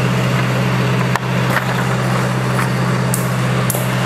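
A loud, steady low hum, with a few light clicks and rustles from paper sheets being handled against a chalkboard, about a second in and again near the end.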